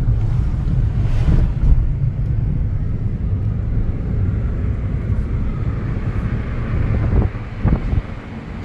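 A car driving on the road, heard from inside: a steady low rumble of engine and tyres with wind hiss, dropping off and turning uneven near the end.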